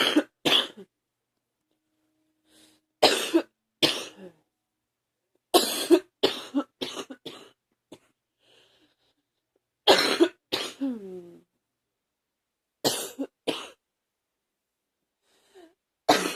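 A person coughing hard in repeated fits of two to four sharp coughs, each fit a few seconds apart, with silence between them.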